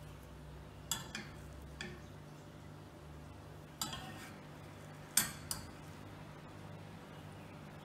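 Metal kitchen utensils clinking against cookware: a few sharp clinks about a second in, one near four seconds, and a louder pair just after five seconds, over a faint steady low hum.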